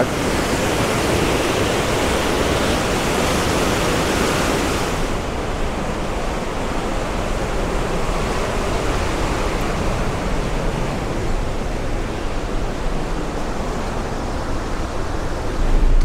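The Upper Düden Waterfall making a steady rush of falling water. About five seconds in, the sound turns duller and loses its highest hiss, then carries on evenly.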